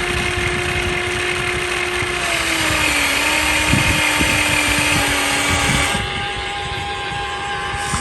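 Huina radio-controlled excavator's small electric motors and plastic gearboxes running, a steady whine over gear rattle. The pitch drops slightly about three seconds in, and a higher-pitched motor takes over about six seconds in.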